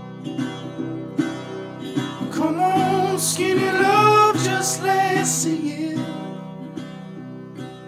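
Background music: acoustic guitar picking, with a voice singing over it from about two seconds in until about halfway through.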